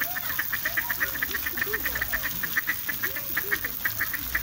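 Ducks calling in a fast, even run of short high calls, about eight a second.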